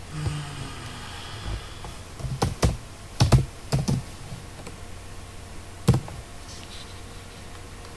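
Typing on a computer keyboard: a quick run of key clicks about two and a half to four seconds in, then a single harder keystroke near six seconds.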